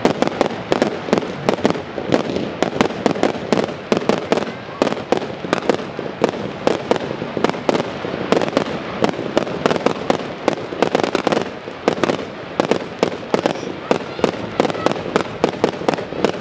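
Fireworks display: an unbroken barrage of aerial firework bursts, several bangs a second, with crackling in between.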